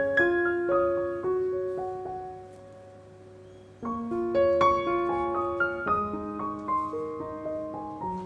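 Background piano music playing a slow, gentle melody of held notes. It fades nearly away about three seconds in, then comes back in sharply about a second later.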